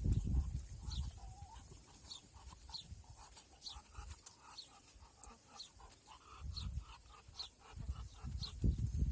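A bird chirping over and over, short falling chirps about every three-quarters of a second, with low rumbling thumps at the start and again near the end.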